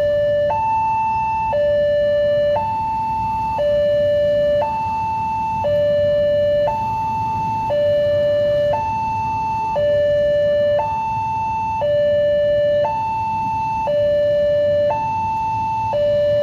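Railway level-crossing warning alarm sounding from the loudspeaker on the signal post: a high tone and a low tone alternate, each held about a second, steady and loud, over a low background rumble. It warns that a train is approaching while the barrier is down and the red light shows.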